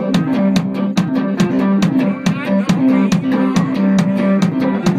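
Live blues played on electric guitar, a repeating riff over a steady foot-stomped beat of about four to five hits a second, kept by the guitarist's foot on a stomp-box pedal.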